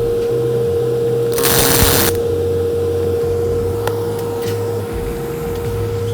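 A pulse MIG welding arc striking one short button tack: a brief crackling burst about a second and a half in, lasting under a second, over a steady machine hum, with a couple of faint clicks later.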